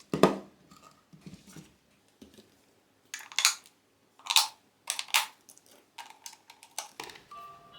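AAA batteries being handled and pressed into a plastic battery compartment: a series of sharp clicks and knocks, most of them about three to five seconds in. Near the end, faint electronic tones start from the alarm clock's speaker as it powers up.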